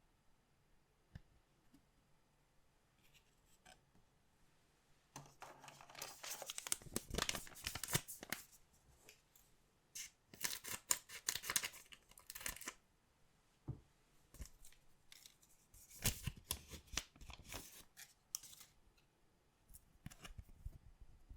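Packaging of a collectible trading-card box being torn open by hand, in three bursts of crinkly tearing with small clicks and rustles between them.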